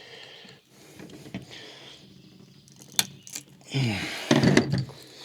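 Plastic and metal clicking and a creaking squeal as a sealant-bonded EGR valve housing is pried apart by hand: a couple of sharp clicks, then a longer creak about four seconds in.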